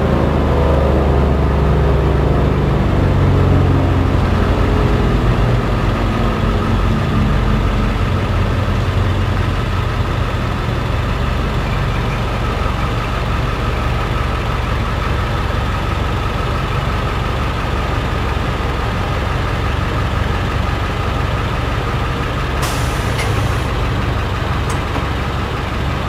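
Heavy truck engine running close by while the truck moves off and turns. Its low rumble is heaviest for the first several seconds, then settles to a steady run, with a couple of brief sharp noises near the end.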